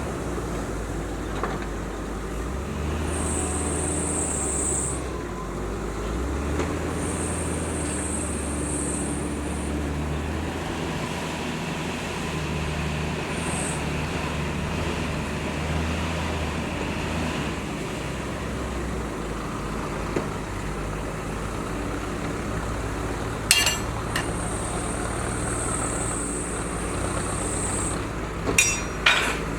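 Diesel engine of a JCB 432ZX wheel loader and dump trucks running steadily at a sand-loading site. A high whine comes and goes several times, and a few sharp clanks sound near the end.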